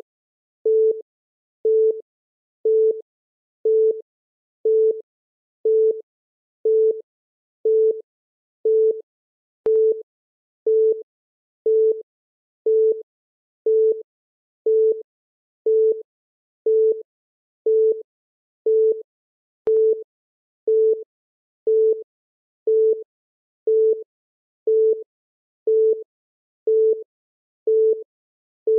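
Countdown timer's electronic beep: a short beep once every second, each at the same pitch, marking each second as it counts down.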